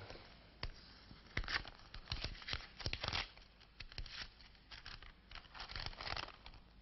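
Paper being handled: an envelope and a sheet of invoice paper rustling and crinkling as they are opened and unfolded, in a quick run of short crisp rustles.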